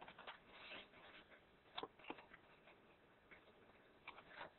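Faint rustling and crackling of a sheet of A4 paper being handled and folded into a paper airplane, with a few short crisp crackles, the sharpest about two seconds in.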